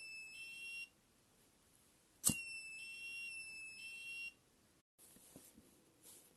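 Buzzer on an Arduino flame alarm sounding a steady high-pitched tone, set off when the flame sensor picks up a flame. The tone stops about a second in, then sounds again for about two seconds, starting with a click, and cuts off.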